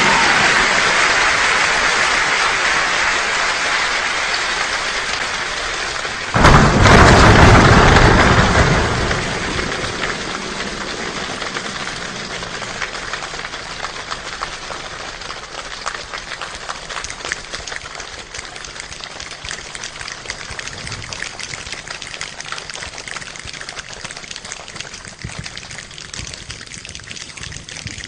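A person-made imitation of a rainstorm: a dense patter like heavy rain, a sudden loud burst like a thunderclap about six seconds in, then the patter thinning and dying away like rain easing off.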